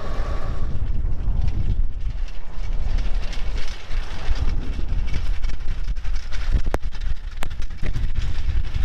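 Model T rail speeder running along a rail track: a steady low rumble of its engine and wheels on the rails, with a couple of sharp clicks near the end.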